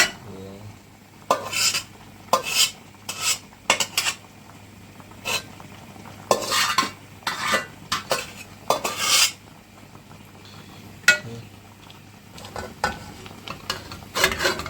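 Spoon stirring and scraping in a metal cooking pot: irregular short scrapes in clusters, with a few sharp clinks.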